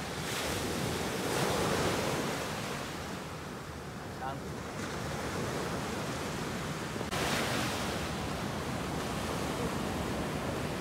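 Sea waves washing onto the shore, with wind on the microphone. The wash swells twice, near the start and about seven seconds in.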